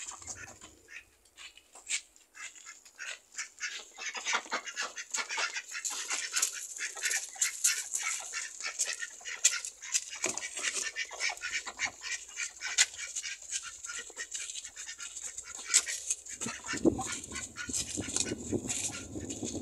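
A flock of domestic ducks quacking and chattering, many short calls overlapping, growing busier a few seconds in. A low rumble joins near the end.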